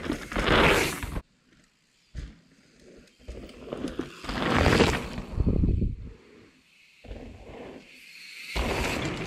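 Mountain bike tyres rolling and scrubbing over a dirt trail as riders pass close by, in several rushes of noise. The longest runs for about three seconds in the middle, and some stop abruptly.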